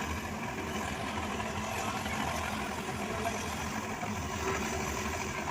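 Helicopter engine running steadily, a constant mechanical hum with no change in pitch.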